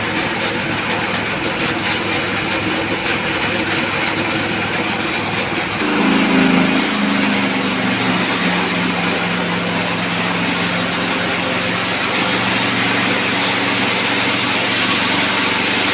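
Horizontal band sawmill powered by a 25 HP electric motor, running steadily and sawing a teak log. About six seconds in it grows louder and a humming tone sets in, dipping slightly in pitch and then holding steady.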